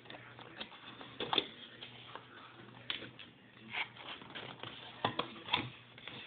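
Cardboard phone box being handled: scattered light taps, scrapes and rustles of cardboard as the inner tray and packaging are lifted out.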